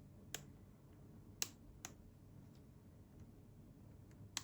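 Small sharp clicks of a flat blade prying a laptop's battery connector off its socket: four clicks, the loudest about a second and a half in and one near the end.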